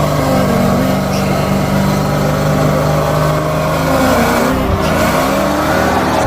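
Car engine running at a held speed, then revving with its pitch swinging up and down about two-thirds of the way through.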